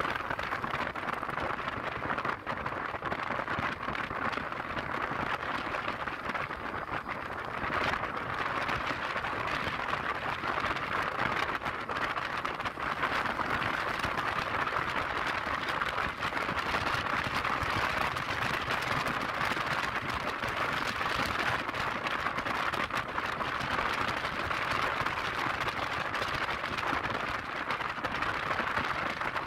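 Steady rushing wind and road noise from riding a Yamaha Lexi scooter at speed, with no distinct engine note.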